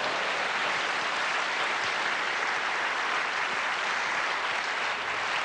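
Large live theatre audience applauding steadily, greeting a performer's entrance onto the stage.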